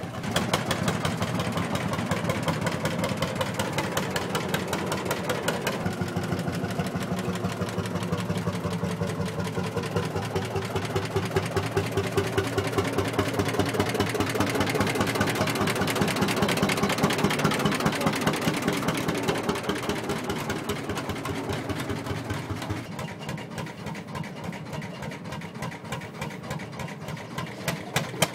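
Lanz Bulldog tractor's single-cylinder two-stroke hot-bulb engine running with a rapid, regular pulsing beat. The sound changes about six seconds in and grows quieter near the end.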